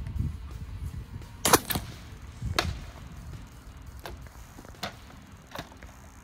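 Floor-pump strokes pressurising a bottle rocket, then a sharp, loud burst of air about one and a half seconds in as the rocket releases from its launcher. A few scattered knocks and clicks follow.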